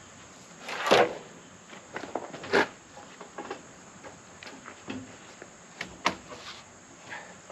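Heavy freshly sawn oak slabs being pulled and dragged off the sawmill by hand: wood scraping and knocking in irregular bumps, the loudest about a second in.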